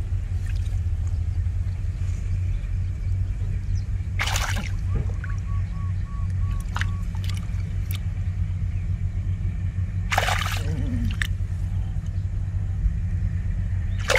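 A steady low rumble with water splashing twice, about four seconds in and again about ten seconds in, and a few small knocks between.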